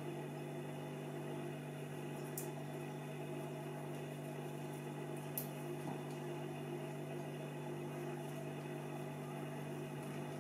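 Steady low electrical hum with faint clicks from handling a cassette deck's tape mechanism, two of them, a few seconds apart.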